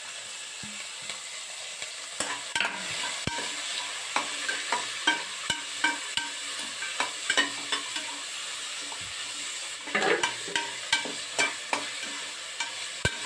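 Onions, green chillies, tomato and curry leaves sizzling in hot oil in a metal pressure cooker pan, with a slotted metal spatula scraping and knocking against the pan as they are stirred. The scrapes come about two a second, thickest from about ten seconds in.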